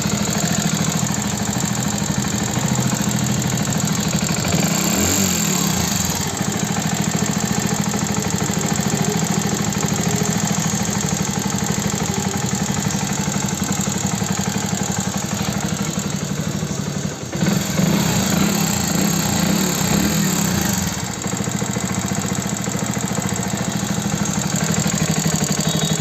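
Hero Passion Plus BS6's single-cylinder engine running with a loud, fast tak-tak-tak clatter from the top of the engine. The mechanic takes it for rocker and tappet noise from too much valve clearance, not a worn timing chain. The engine dips briefly and picks up again about two-thirds of the way through.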